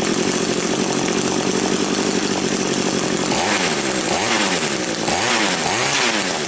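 Echo two-stroke string trimmer engine idling steadily, then revved up and back down about four times in the second half. It now revs freely with its carbon-clogged muffler screen cleaned.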